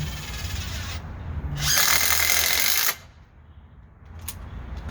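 DeWalt DCF801 12 V impact driver driving a wood screw. It runs at a lower level at first, then much louder for about a second and a half, and stops abruptly about three seconds in.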